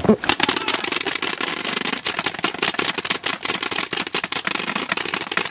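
Several paintball markers firing rapidly at once: a dense, unbroken stream of sharp pops.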